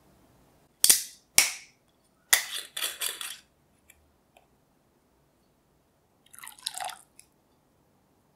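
Kitchen handling sounds: two sharp clinks of the whisk against the glass mixing bowl, then a rough rattly scrape as the screw cap is twisted off a rum bottle, and near the end a short trickle of rum being poured.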